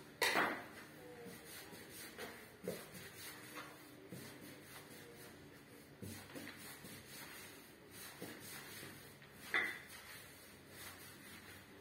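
A rope of durum-wheat pasta dough rolled under the palms on a wooden pasta board: faint, soft rubbing with a few light knocks on the wood, the sharpest one just at the start.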